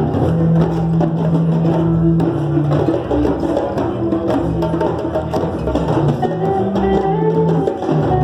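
Drum circle: many hand drums playing a dense, fast rhythm together. Under it a pitched instrument holds low notes that change every second or so, and a melody line runs higher up.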